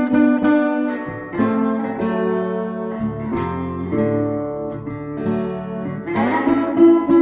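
Background music on strummed acoustic guitar, the chords changing every second or two.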